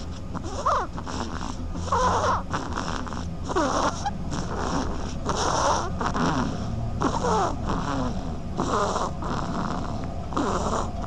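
Baby duckling snoring in its sleep: a short snore about every second and a half, each with a hiss and thin squeaky rising and falling notes.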